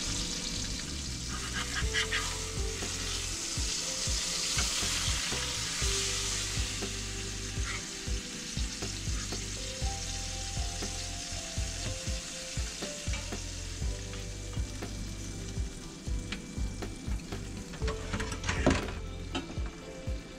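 Steak, green beans and onions sizzling in a frying pan, with a spatula scraping and tapping against the pan as the food is turned and lifted out. The sizzle is strongest in the first several seconds and dies down later, with a brief clatter near the end.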